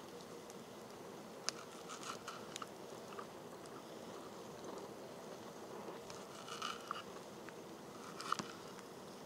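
Kitchen knife slicing through meat on a wooden cutting board: irregular soft cuts and sharp taps as the blade meets the board, over a low steady background hiss.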